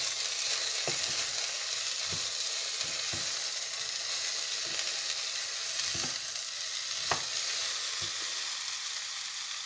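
Chopped okra and tomato frying in oil in a pot with a steady sizzle, while a wooden spatula stirs them and knocks against the pan about once a second.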